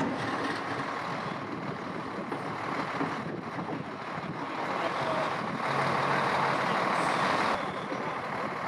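Road vehicles, trucks among them, running: a steady wash of engine and traffic noise, with a low engine hum standing out for a couple of seconds a little past the middle.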